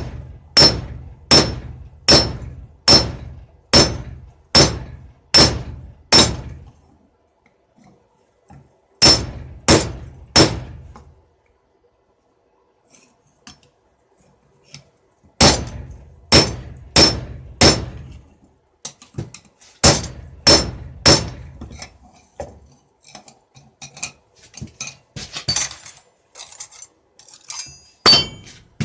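Hammer striking metal on an anvil in runs of evenly spaced blows, about one every 0.8 seconds, each with a short bright metallic ring. In the last few seconds the blows give way to lighter, scattered clinks and taps, with one sharp strike near the end.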